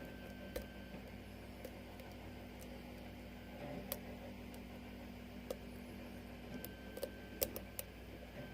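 Faint, scattered metallic clicks and taps of a lock pick working the pins inside a 6-pin Falcon lock, several in quick succession near the end, over a steady low hum.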